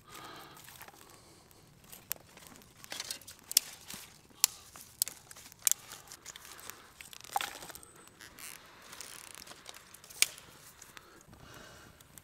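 Firewood being split and broken: about seven sharp knocks and cracks spread over several seconds, with crunching and crackling between them.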